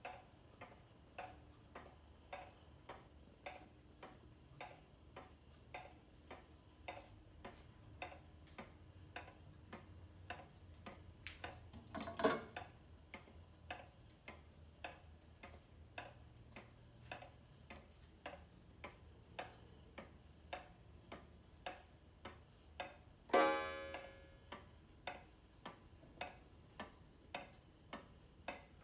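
E.N. Welch regulator wall clock's pendulum movement ticking steadily, a faint tick-tock at somewhat under two beats a second. A sharper click comes about twelve seconds in, and a short ringing strike about twenty-three seconds in.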